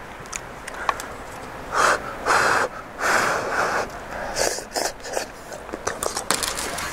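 A man eating hot beef stew from a wooden spoon, with several short breathy slurps and sucks of air between about two and five seconds in.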